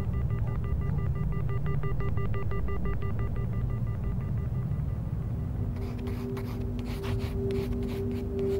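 Dark ambient film-score music: a low rumbling drone under faint, fluttering high tones; about six seconds in, a held ringing chord enters with a scatter of clicks.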